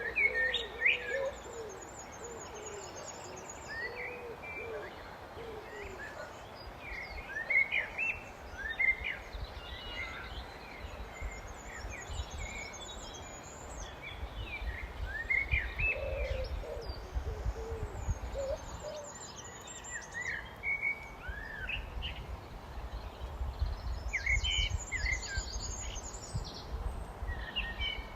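Common blackbird singing: repeated fluting, warbled phrases, several ending in a high, thin twitter. Low cooing calls from another bird come in at the start and again about two-thirds of the way through, over a steady low rumble.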